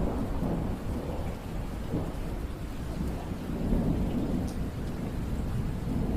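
Rainfall with a low rolling rumble of thunder, swelling near the start and again about four seconds in.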